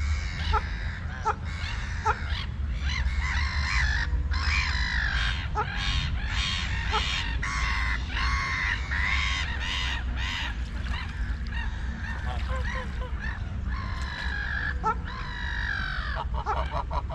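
A flock of white domestic waterfowl calling, many harsh overlapping calls that crowd together through the middle, over a steady low rumble.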